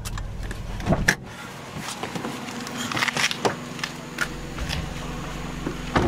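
Driver pulling over and getting out of a Honda Life kei car: a sharp click about a second in as the low running rumble drops away, then scattered clicks and rustling, and a short thump near the end.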